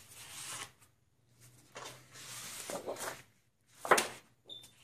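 Sheets of cardstock and scrapbook paper being slid across each other and flipped over, in soft swishes with short pauses and a sharper, louder flap about four seconds in.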